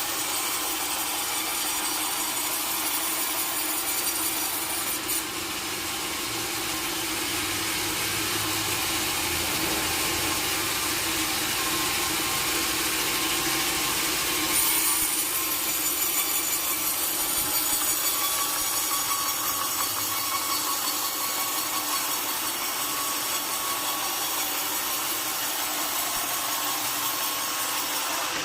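A sawmill saw running steadily through a large log, a continuous hiss of blade in wood. Its tone shifts about five seconds in and again around the middle.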